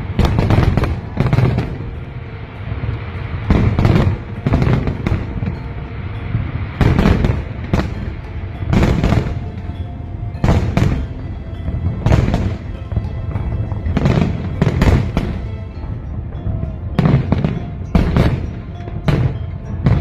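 Aerial fireworks going off in a long, irregular run of loud bangs, several a second at times, with music playing underneath.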